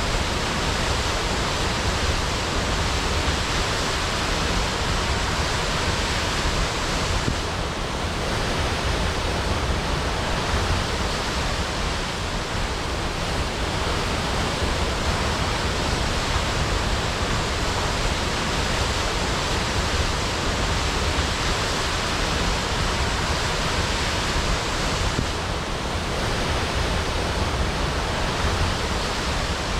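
Waterfall crashing: a loud, steady rush of falling water, dipping slightly twice.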